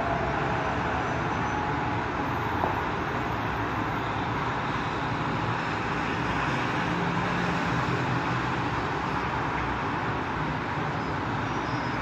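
A siren's falling tone fades out in the first moment. What is left is steady outdoor background noise with the rumble and hiss of distant traffic.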